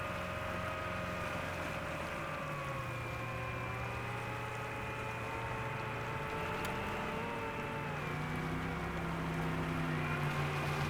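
Steady motor hum over a hiss of wind and water, with several pitched tones that slowly slide up and down as the speed changes.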